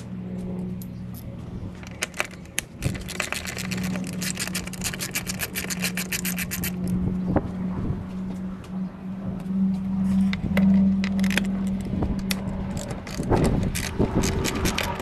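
Hand tools working bolts under the hood: a ratchet clicking in quick runs, with metal and plastic scraping and tools clinking, over a steady low hum.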